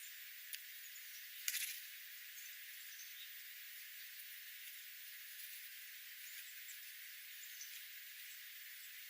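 Steady hiss with a few faint, very high, short chirps of small birds, a small click about half a second in, and a sharper rattling click about one and a half seconds in.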